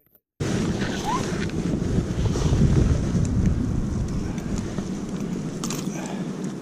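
Gusting wind buffeting the microphone, a steady low rumble that starts abruptly about half a second in, with a few faint clicks near the end.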